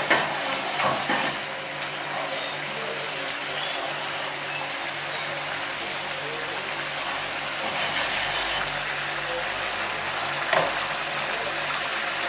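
Meatballs in tomato sauce simmering and sizzling in a frying pan over a gas flame, a steady hiss, with a few light knocks around the start and once near the end.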